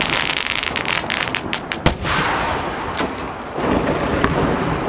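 Aerial fireworks going off at close range. Dense crackling fills about the first two seconds, followed by a few sharp shell bursts over a rushing hiss; the loudest bang comes a little under two seconds in.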